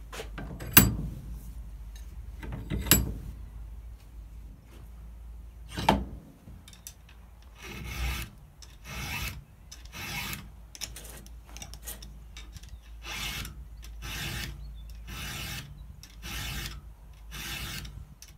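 A few sharp knocks as a chainsaw's bar is clamped into a bench vise, then a chain file rasping across the cutters of a 3/8 full-chisel skip-tooth chain in a steady run of strokes, about one a second: the chain being hand-sharpened.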